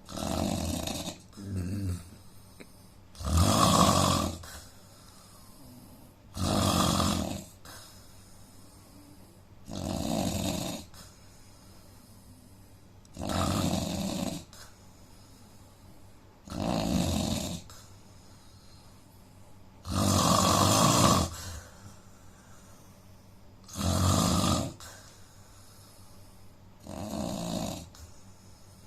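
A man snoring in his sleep, with about nine loud rasping snores, one roughly every three and a half seconds, and quiet gaps between them. The uploader ties the snoring to a problem with his nose.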